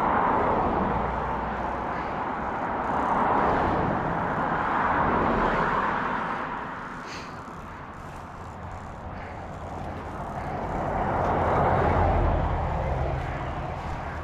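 Traffic on a highway passing close by: tyre and engine noise that swells and fades several times, loudest about twelve seconds in.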